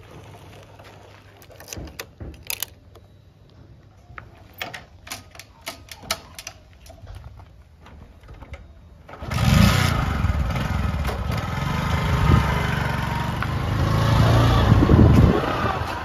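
A few light clicks and knocks. About nine seconds in, a motorcycle engine starts and runs loudly as the bike rides off, with wind on the microphone.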